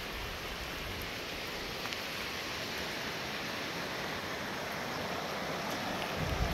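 Steady rushing noise of a river in flood, mixed with falling rain; a low rumble joins near the end.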